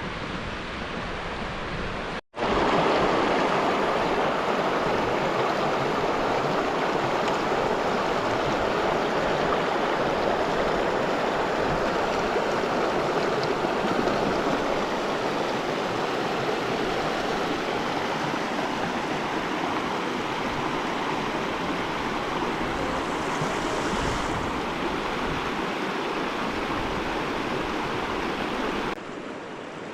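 A river rushing steadily, as an even wash of water noise. It cuts out abruptly for a moment about two seconds in, comes back louder, and drops slightly near the end.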